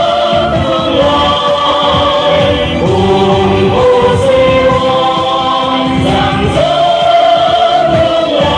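Loud music with a choir-like chorus singing long held notes over the accompaniment, playing without a break to accompany a stage dance.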